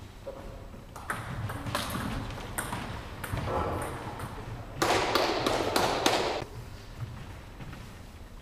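Table tennis balls clicking and bouncing, a few sharp single taps between points, with a louder noisy burst lasting about a second and a half in the middle.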